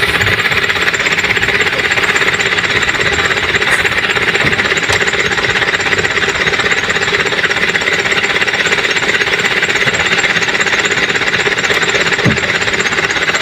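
A small engine running steadily at an even speed, a loud continuous drone.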